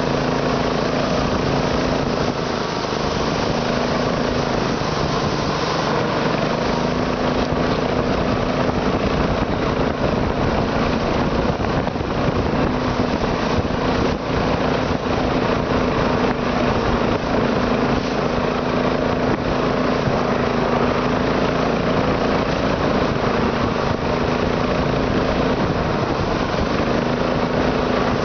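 Internal combustion engine running steadily at idle, an even unbroken drone.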